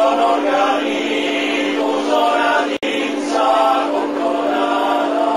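Sardinian male choir singing a cappella in close harmony, phrase after phrase, over a steady low hum. The sound cuts out for an instant about three seconds in.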